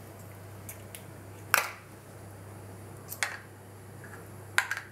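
Eggs being cracked and separated over glass bowls: three sharp clicks of shell, knife and glass, the loudest about a second and a half in, over a steady low hum.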